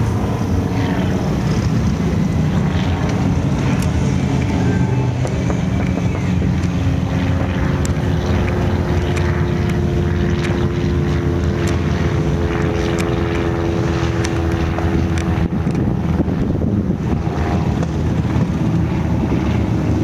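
Wind buffeting the camera microphone: a loud, steady low rumble. A faint steady hum sits under it through the middle part.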